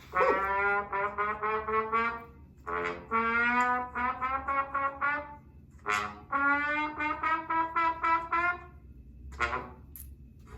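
A brass horn plays three quick phrases of short tongued notes as comic sound effects, with short gaps between them and a few brief noises near the end.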